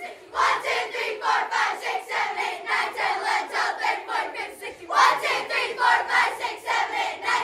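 A group of children chanting and shouting together in a fast, steady rhythm of about three beats a second.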